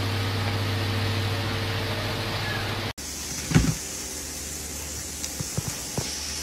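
A steady machine hum with hiss that cuts off abruptly about three seconds in. After it comes a quieter stretch with one thump and a few light taps.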